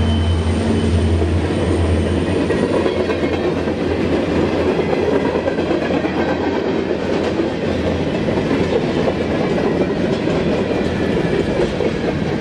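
Freight cars of a long mixed freight train rolling past, a steady rumble of steel wheels on rail with scattered wheel clicks. Over the first few seconds a low engine drone from the just-passed locomotives, a pair of EMD SD45 rebuilds, stands out and then weakens as they move off.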